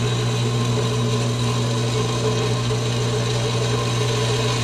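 A shop power tool or machine running steadily: a constant low hum under an even hiss, unchanging throughout.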